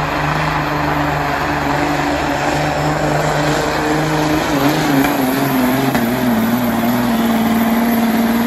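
Hot street semi truck's diesel engine at full throttle under heavy load, dragging a pulling sled. It runs loud and steady with a held pitch that wavers slightly.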